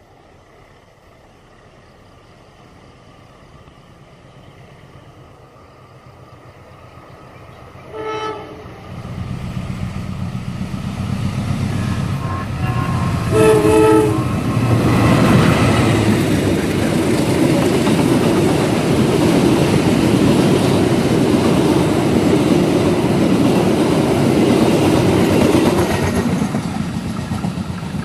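Passenger train coming up and passing close by. Its locomotive horn gives a short blast about eight seconds in and a longer one about five seconds later, and the horn sounds stuffy, as if it had a cold. Then the train runs past loudly for well over ten seconds, with the wheels going clickety-clack, and eases off near the end.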